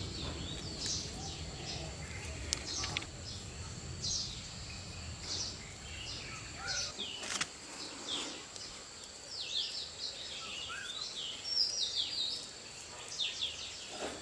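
Wild birds chirping, many short quick calls overlapping, over a low rumble that stops about seven seconds in.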